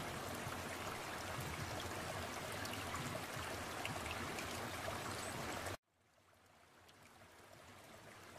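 Steady rush of running water. It cuts off suddenly about six seconds in, then fades back in more quietly.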